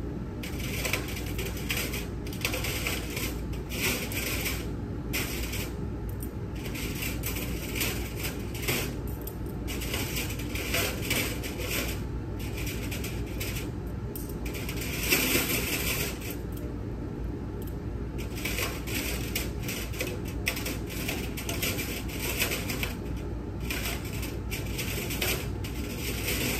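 Stainless steel surgical instruments, curved Kelly clamps, clinking and clicking against each other as they are handled and counted. The clicks come in irregular clusters, with the densest flurry about halfway through.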